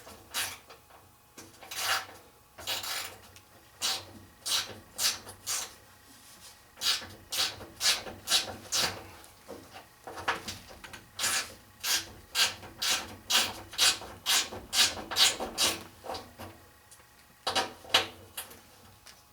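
Rasping strokes like a hand file worked back and forth on metal, about two a second, with short pauses about six seconds in and again near the end.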